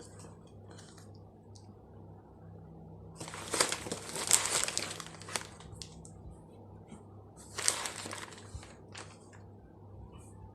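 Plastic parcel packaging crinkling and rustling as it is handled and pulled at while being opened, in a few bursts about three and a half, five and eight seconds in. A faint steady low hum runs underneath.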